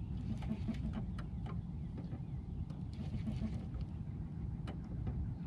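Steady low rumble with scattered sharp clicks and ticks from rod and reel as a hooked catfish is fought from a small jon boat.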